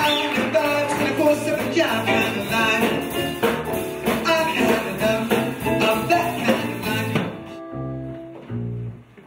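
Live swing-band music with a singer, busy and upbeat; about seven seconds in it switches abruptly to a quieter, sparser passage of bass and guitar notes.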